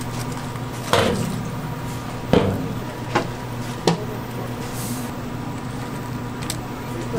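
Cooking utensils and dishes clattering at a street-food stall: four sharp knocks in the first four seconds and a short hiss, over a steady low hum.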